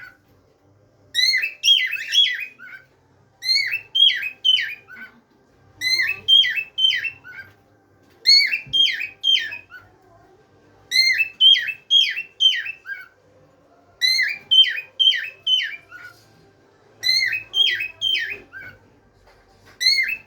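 Cockatiel whistling a short phrase of four to six quick, up-and-down notes, repeated over and over with brief pauses between.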